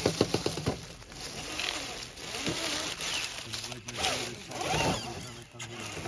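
Scale RC rock crawler driving, its small electric motor and gears whirring, with a fast, even rattle in the first second.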